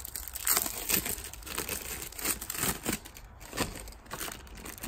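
Clear plastic bag crinkling in a string of irregular rustles as a new spin-on fuel filter is unwrapped by gloved hands.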